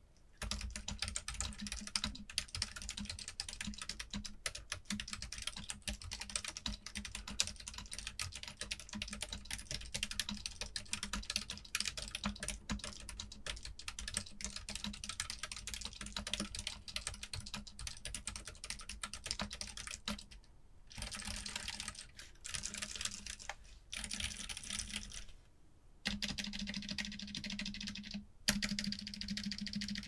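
Fast typing on a mechanical keyboard fitted with Outemu Silent Ocean silent linear switches, a muted, dampened keystroke sound with no click. It goes as a dense run of key presses, and about twenty seconds in it breaks into shorter bursts with brief pauses between them.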